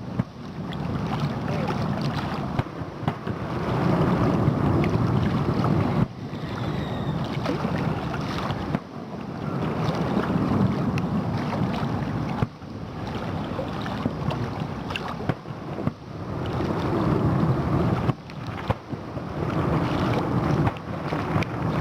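Fireworks going off in a dense, continuous barrage: overlapping booms and crackling that rise and fall in loudness without a real pause.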